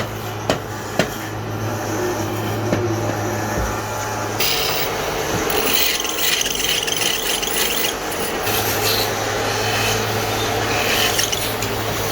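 A tool rasping and rubbing on wood, with a few sharp clicks in the first second. Under it runs a steady low machine hum that stops about four seconds in and returns about eight and a half seconds in.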